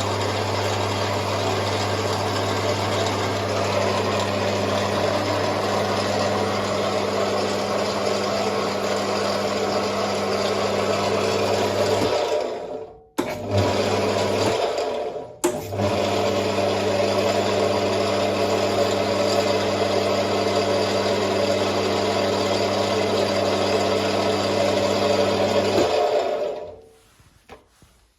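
Ferm 450 metalworking lathe running, a steady electric-motor hum with gear and belt noise. It winds down about 12 seconds in, starts up again shortly after, and runs down once more near the end.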